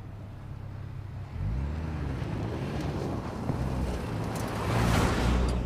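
2024 Toyota Land Cruiser's turbocharged four-cylinder hybrid engine running as the SUV drives along a dirt trail. It revs up about a second and a half in, and a rush of tyre and loose-dirt noise swells to its loudest near the end as the SUV comes close.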